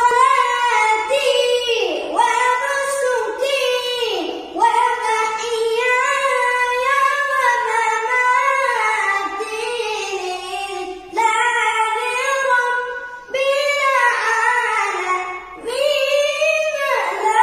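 A young boy reciting the Quran in the melodic tilawat style. His high voice holds long, wavering phrases, with several short pauses for breath.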